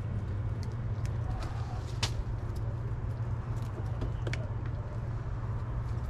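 A steady low hum, with light clicks and rustles of tomato stems and leaves as ripe tomatoes are picked off the vines by hand, and one sharper snap about two seconds in.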